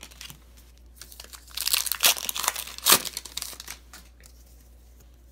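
Wrapper of a 2016 Donruss football card pack torn open and crinkled by hand: a cluster of crackling rustles from about a second and a half in to about three and a half seconds, with the sharpest tear near three seconds.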